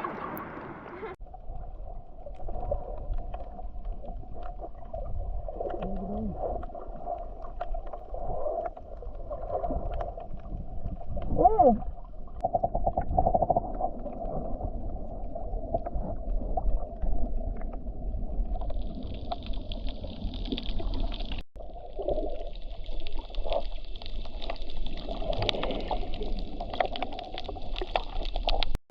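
Muffled underwater noise with gurgling, heard through a submerged camera while snorkeling among fish; the sound is dull and cut off above the low range, with a brief wavering tone about halfway through.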